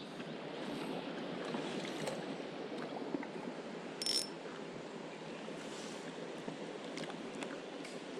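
Stream water flowing, a steady rushing, with a few faint clicks and one brief high-pitched sound about four seconds in.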